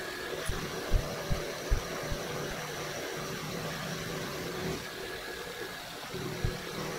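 Vertical milling machine running, its end mill taking a side pass of about 20 thousandths in a slot as the table feeds the work across: a steady machine noise with a faint whine, broken by a few short low thumps.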